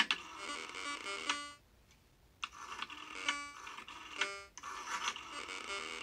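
Modular synthesizer oscillator playing quick runs of short stepped notes. Each note is triggered by a pulse from a rotary phone dial as it spins back, so each dialled digit gives one rapid burst. Three runs, with a hiss alongside each one.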